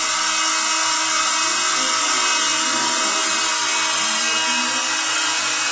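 Air-driven acrylic Tesla turbine and its generator spinning at high speed on compressed air at about 40 psi, a steady high-pitched whine and hiss of air that does not change.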